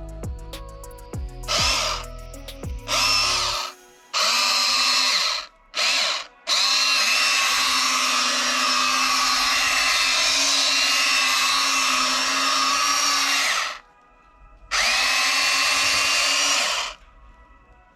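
Huina 1592 RC excavator's electric gear motors whirring in repeated bursts as its functions are driven. There are several short runs, one long run of about seven seconds, and a last run about two seconds long near the end.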